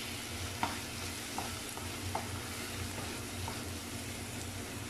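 Chopped tomato, onion and green chillies sizzling in oil in a nonstick pan as a spatula stirs them, with a few light knocks of the spatula against the pan in the first couple of seconds.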